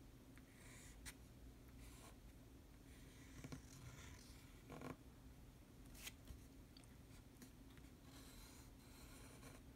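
Faint scratching of a fountain pen nib on paper as large characters are written, in short separate strokes with soft taps as the nib meets the sheet and pauses between them, over a low steady room hum.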